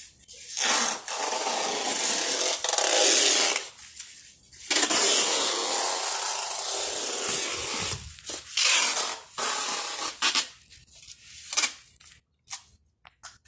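Packing tape being pulled off the roll around a cardboard box, in two long screeching strips of about three seconds each, then a few shorter pulls and tears that thin out near the end.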